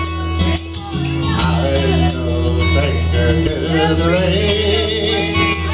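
Country karaoke backing track playing the instrumental intro of a country ballad: steady bass, drums keeping a steady beat, and guitar carrying the melody.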